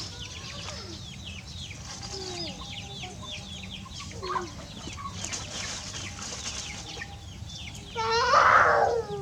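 Birds chirping in quick, repeated short downward-sliding calls, with a louder, harsh call with a falling pitch about eight seconds in.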